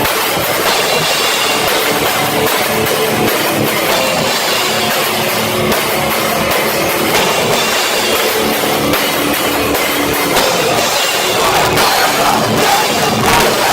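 Live heavy rock band playing, distorted guitars and drum kit, recorded loud and distorted on a cheap cell phone microphone.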